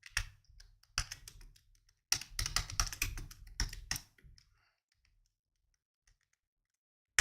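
Typing on a computer keyboard: a quick run of keystrokes for about four seconds, then a pause and a single key click near the end.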